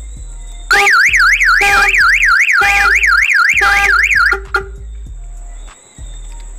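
Prestige aftermarket car alarm siren set off by reconnecting the car battery: a loud, fast up-and-down warble, about three sweeps a second. It cuts off after about three and a half seconds.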